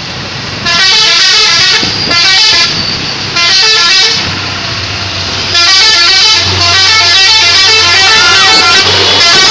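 A Fuso truck's telolet horn plays quick runs of stepping notes like a rapid little tune, loud. It comes first in three short bursts, then in one long run from about halfway, with a low engine hum underneath.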